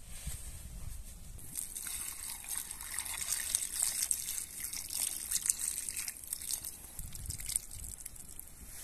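Water pouring from a metal canteen into a wooden bowl of vegetables, splashing and trickling over them. It starts about a second in and stops near the end.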